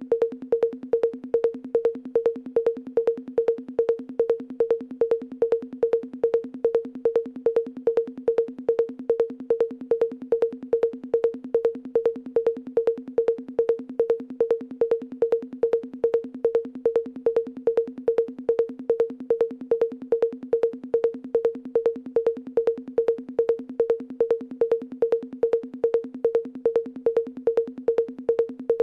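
A looped traditional beat: the same short, pitched percussion stroke repeats at an even pace, about two strokes a second, with a machine-like regularity.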